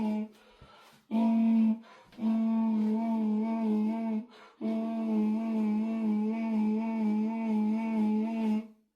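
A voice humming one steady low note, held in stretches with short breaks for breath: a brief one about a second in, then about two seconds, then a long hum of about four seconds.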